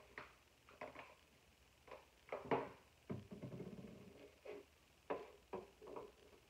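Makeup products and small containers being handled and set down on a tabletop while someone rummages for lash glue: about a dozen short clicks and knocks, with a longer stretch of rustling about three seconds in.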